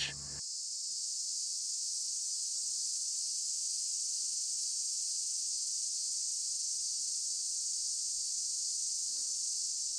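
Steady, high-pitched insect chorus, a continuous even buzz that rises over the first second and then holds unchanged.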